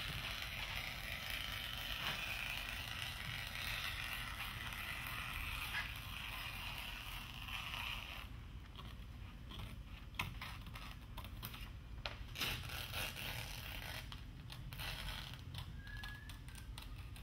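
Scissors cutting through Dacron sailcloth: a continuous hiss of the blades working through the cloth for the first half, then a series of separate snips and clicks.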